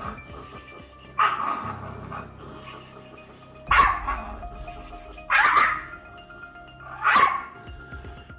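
Shiba Inu barking aggressively in defensive attack mode: four loud, sharp barks, one every two seconds or so, the first a little drawn out.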